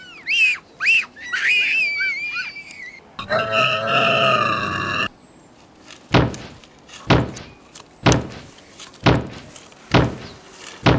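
Dinosaur sound effects: a few high chirping squeaks, then a T-Rex roar lasting about two seconds, then six stomping footsteps about a second apart.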